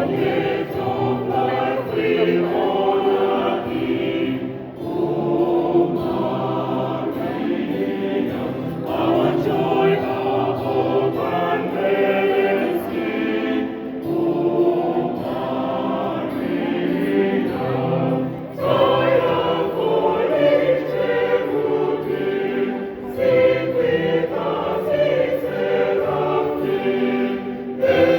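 Church choir singing a hymn in several voice parts, in phrases with short breaths between them.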